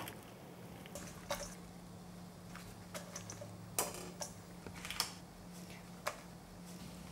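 Faint scattered clicks and soft taps as oyster mushrooms are cut at the base with a chef's knife, torn apart by hand and dropped into a stainless steel bowl, over a steady low hum.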